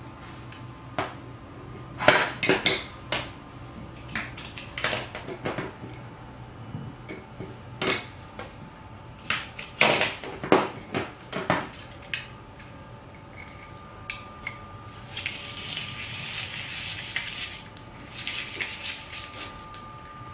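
Stainless-steel rotary grater clattering and knocking against a wooden tabletop as it is handled. Later its drum is cranked against a carrot, giving a rasping shredding noise for about two seconds and then again briefly.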